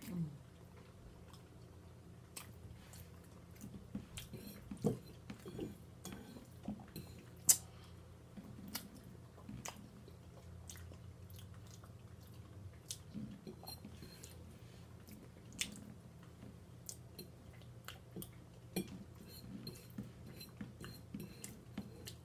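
A woman chewing and smacking soft food (turkey Alfredo pasta and dressing) close to the microphone, with scattered wet mouth clicks and a sharper click about seven and a half seconds in. A steady low hum runs underneath.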